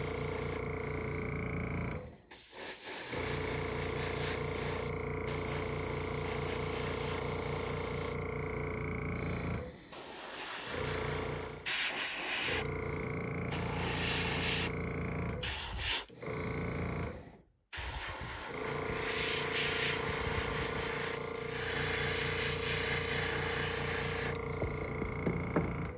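Airbrush compressor running with a steady hum, while a Master gravity-feed airbrush hisses in spells as its trigger is pressed to spray black paint. The whole sound drops out abruptly several times.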